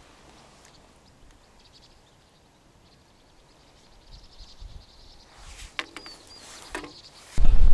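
Near-silent outdoor quiet, then a few faint clicks and a short high bird chirp about six seconds in. Near the end a sudden loud low rumble sets in.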